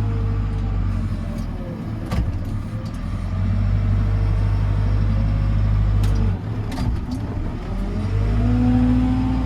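JCB 4CX backhoe loader's diesel engine running under load while its front bucket works stone, the revs swinging up and down and climbing near the end, with a few sharp knocks.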